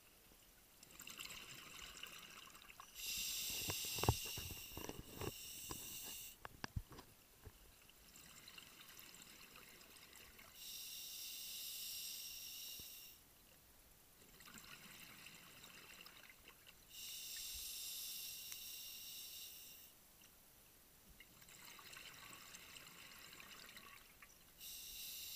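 Scuba diver breathing through a regulator underwater: about every seven seconds a quieter hiss is followed by a louder rush of exhaled bubbles, four breaths in all, with some bubbly crackling in the first exhale.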